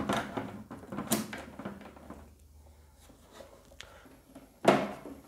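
Hands handling wiring inside a plastic water-purifier housing: light rustles and scattered clicks, with a louder knock a little before the end.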